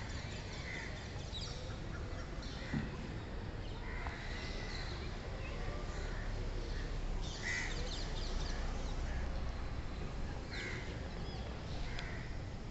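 Crows cawing, several short calls scattered through, over a steady low rumble.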